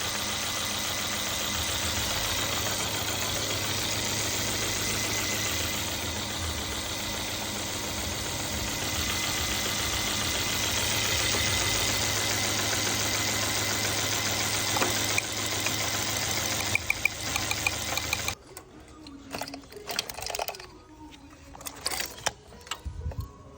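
Mercedes engine idling with a misfire from a faulty fuel injector, then switched off abruptly about 18 seconds in; a few clicks and knocks follow.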